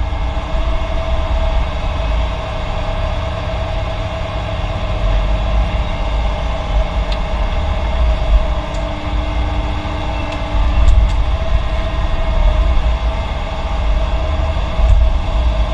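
Heavy diesel construction machinery running: a steady low engine rumble with a held whine over it, swelling briefly a few times.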